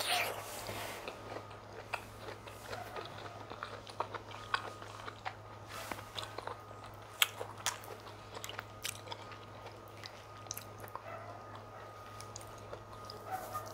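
Close-miked eating of chicken pepper soup and fufu: chewing and biting with frequent short, wet clicks and crunches, the loudest a little past the middle, over a faint steady low hum.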